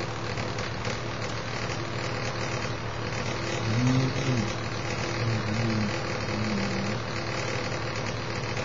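Steady hum and hiss with constant low humming tones. A few short, low voiced hums break in about four seconds in and twice more around five to six and a half seconds.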